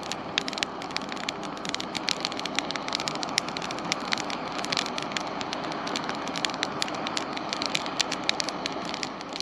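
Split firewood burning in a small metal fire basket: a dense run of sharp crackles and pops over a steady rush.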